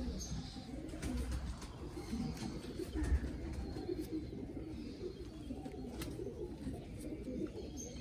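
Domestic pigeons cooing continuously, with a few faint clicks.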